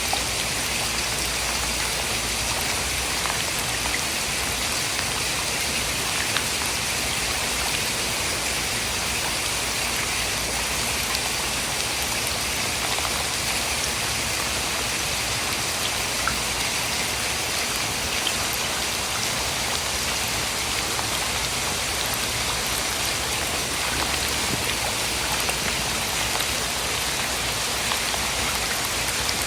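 Steady rain falling: an even, unbroken hiss with faint scattered ticks of drops.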